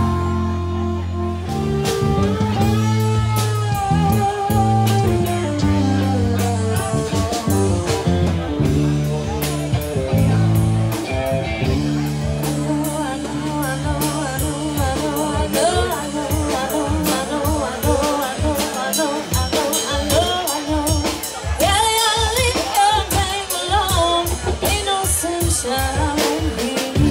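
Live band music: a woman sings lead over electric guitar, bass and a drum kit with a steady beat, all amplified through a PA.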